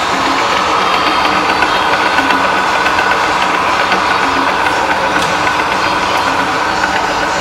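Mysore Kirloskar Enterprise 400 heavy-duty lathe running, a steady mechanical hum and whir from its spindle drive.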